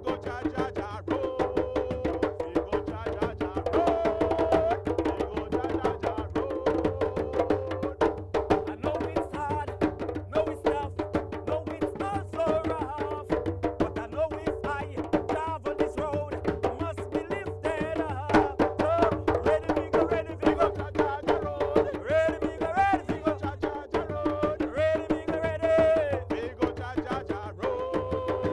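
A Jamaican drum ensemble playing a fast, steady rhythm of hand-drum and stick or wood-block strikes, with voices singing over it.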